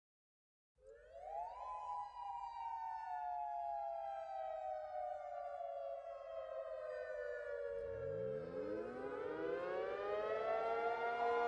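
Outdoor civil-defense warning siren sounding a two-note chord. It starts about a second in, climbs quickly, then winds slowly down in pitch. About eight seconds in, a second siren tone winds up from a low growl to full pitch over it.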